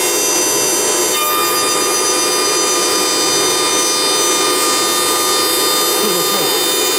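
Blue Elephant 2030 ATC CNC router spindle running at speed, its bit cutting into a wooden column that turns on the rotary axis. There is a steady high-pitched whine of several tones over a rasping cutting noise.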